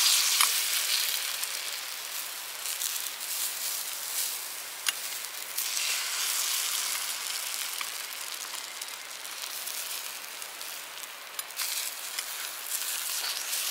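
Beaten egg sizzling in a frying pan on a camp gas stove, loudest at the start, with a few light clicks of chopsticks against the pan.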